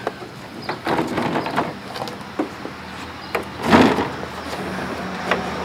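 Light knocks and bumps on a hollow plastic toy easel as a toddler crawls under and into it. The loudest is a thump about two-thirds of the way through.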